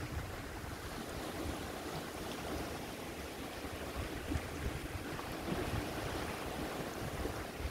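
Small estuary waves washing and lapping along the edge of a sandbank, a steady watery hiss, with low gusts of wind buffeting the microphone.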